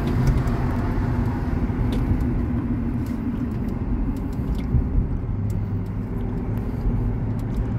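Steady road and engine noise heard inside a moving car's cabin: a low, even rumble from the car cruising along a paved highway.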